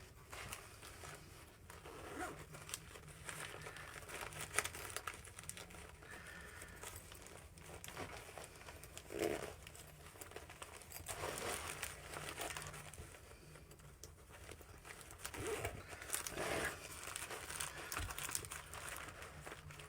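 A cloth bandana being folded and rolled up tight by hand: irregular rustling and crinkling handling sounds with a few louder scuffs.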